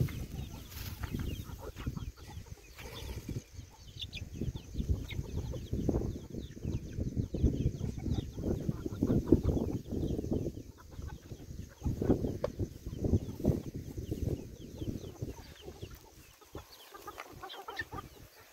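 Chickens clucking over a dense low rustle with many short knocks.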